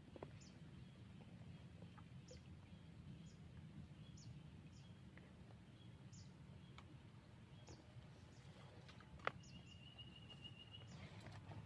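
Faint outdoor ambience with a bird's short, high chirps repeating about once a second. A single sharp click comes about nine seconds in, followed by a brief steady high tone.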